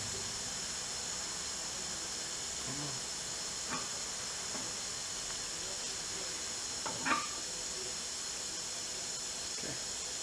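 A few faint metal clicks and knocks as the Audi front differential is worked out of the transmission case, the loudest about seven seconds in, over a steady background hiss.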